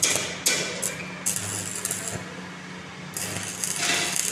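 Stick (arc) welding on steel tubing: the electrode's arc crackling and sizzling in two spells, one at the start and one from about three seconds in, over a steady low hum.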